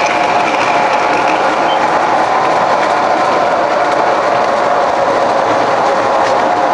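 MTH O-gauge model subway train running along the track: a steady whine over an even rolling noise, with faint clicks from the wheels on the rails.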